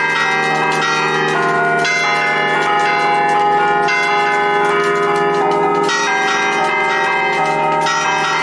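Bronze church bells from a six-bell De Poli set cast in 1910 and tuned in B-flat, rung festively: struck in quick succession with their tones ringing on and overlapping, a fresh group of strikes about every two seconds.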